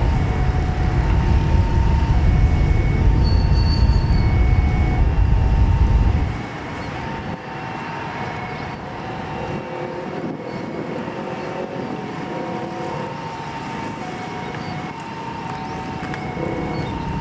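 Jet engines of a Lion Air Airbus A330-900neo running, with a heavy low rumble of jet blast for about six seconds that drops off abruptly, leaving a quieter, steady engine hum with a faint whine.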